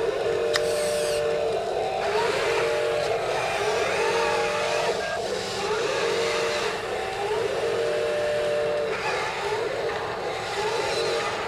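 Small electric drive motors and plastic gearboxes of toy RC construction machines (a wheel loader and an excavator) whining as they run. The whine switches on and off every second or two, often rising in pitch as a motor spins up and then holding steady, over a constant hiss.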